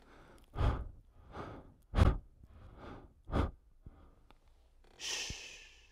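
Close, heavy human breathing: five short, loud breaths in about three and a half seconds, then a longer, hissier breath near the end.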